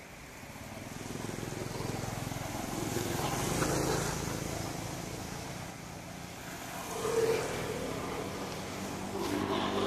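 A motor vehicle's engine running, growing louder over the first few seconds, easing off, then swelling again near the end.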